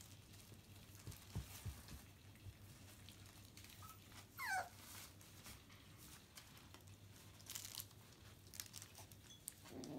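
A cockapoo puppy gives one short whimper, a squeak falling in pitch, about four and a half seconds in, over faint rustling as the puppies move about.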